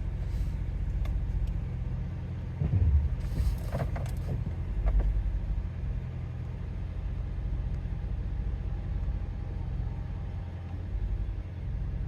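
VW Touareg 4.2 TDI V8 diesel engine idling steadily, with a couple of short hisses of air.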